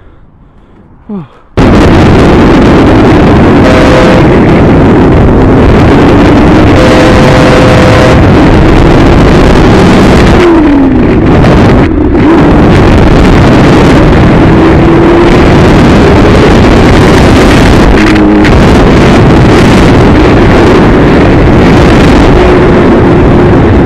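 Motorcycle engine running at speed, buried in heavy wind noise on the helmet-mounted microphone. It starts suddenly about a second and a half in and stays very loud. The engine pitch rises and falls as the rider accelerates and eases off, with one quick drop in pitch about halfway through.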